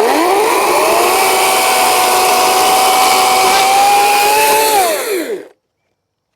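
EGO CS1801 56-volt battery chainsaw with a full-chisel chain spinning up to full speed, running with a steady whine for about five seconds, then winding down and stopping.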